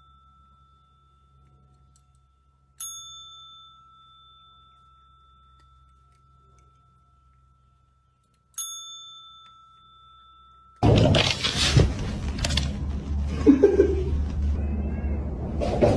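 A chrome desk service bell struck twice by a cat's paw, about six seconds apart. Each strike is a single bright ding that rings on and slowly dies away, and an earlier ding is still ringing at the start. Near the end a much louder, noisy stretch of sound takes over.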